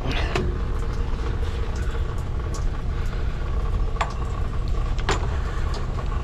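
Steady low drone of running plant-room machinery, with three sharp metal clicks as a press tool's jaws are handled and set onto a copper press fitting.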